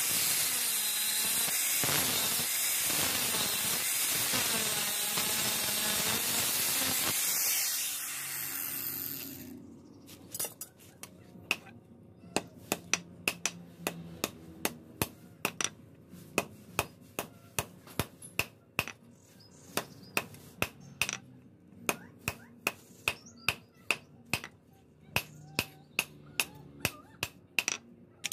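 An angle grinder cuts through a perforated steel blank from a motorcycle brake disc, then spins down after about eight seconds. After that, hammer blows ring on hot steel on an anvil block, about two a second, as the red-hot tip is forged.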